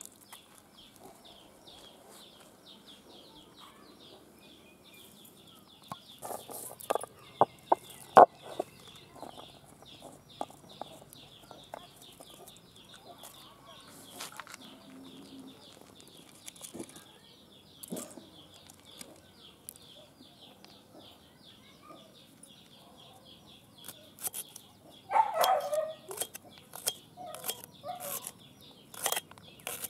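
Yard ambience of hens clucking over a steady high chirping. A few sharp knocks come about six to eight seconds in, and near the end there is a run of quick ticks from a knife cutting ginger against a stone grinder.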